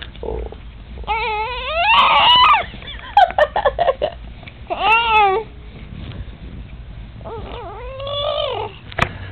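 A 4-month-old baby making cry-like wails, four separate drawn-out high-pitched calls that each rise and fall in pitch.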